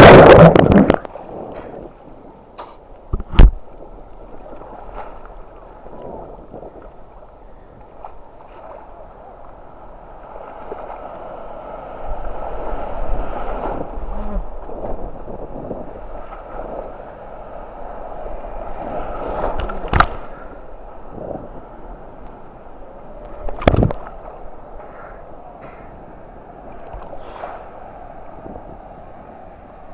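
Ocean water sloshing and gurgling around a camera held in the surf, with a loud surge at the start and a sharp knock a few seconds in and two more about twenty seconds in.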